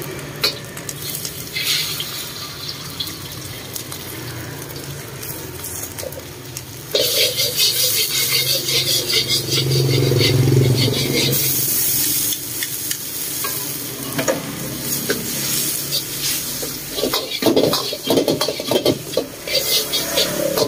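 A duck egg frying in hot oil in a wok, the sizzle starting suddenly about seven seconds in. A steel ladle scrapes and clanks against the wok as the egg, then noodles and greens, are stir-fried.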